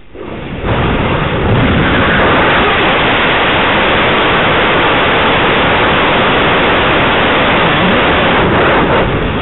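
Rocket engine hot-fire test: the engine ignites and builds to full thrust within about a second and a half, then runs with a loud, steady roar of exhaust noise before it begins to shut down near the end.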